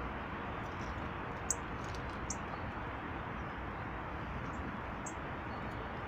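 A few short, high bird chirps, scattered and spaced apart, over a steady rushing background noise.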